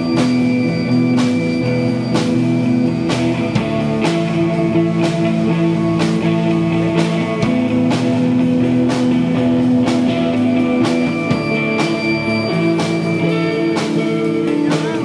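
Live post-punk band playing: electric guitars holding long sustained notes over bass guitar and a drum kit, with drum and cymbal hits about twice a second.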